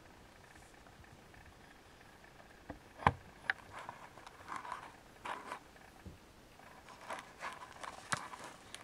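Siamese kittens scrambling in and around a carpet-covered cat tree: a few sharp knocks starting about three seconds in, the first the loudest, then bouts of scratchy rustling as they move over the carpet.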